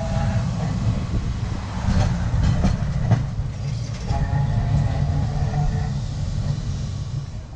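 Vintage wooden electric tram running along street rails: a steady low rumble, with a few sharp clacks of the wheels about two to three seconds in.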